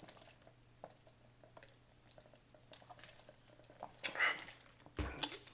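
Close-miked chewing and wet mouth sounds of a person eating, faint, with soft little clicks. There are two louder, brief mouth sounds about four and five seconds in.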